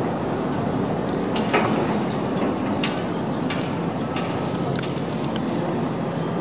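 Heavy construction machinery's diesel engine running steadily, with several short, sharp metallic clinks and knocks scattered through.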